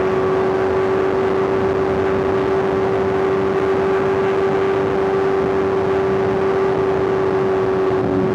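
Superbike's inline-four engine running at steady high revs while cruising, one held engine note with wind noise rushing over it.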